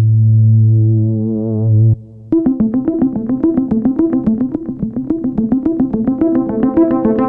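Sequential Prophet X synthesizer holding a low sustained note whose upper overtones wobble slowly. The note stops about two seconds in. After a short gap comes a quick, steady run of short plucked keyboard-like notes, about five a second.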